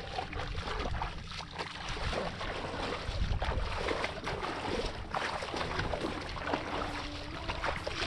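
Bare feet wading through shallow muddy water, with irregular splashing and sloshing at each step.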